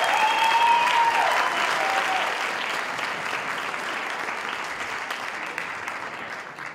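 Audience applauding and cheering, with one drawn-out shout rising over the clapping in the first two seconds; the applause dies away toward the end.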